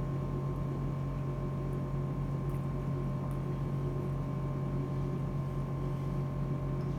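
A steady low mechanical hum with a faint thin whine above it, unchanging throughout, with a few tiny faint clicks.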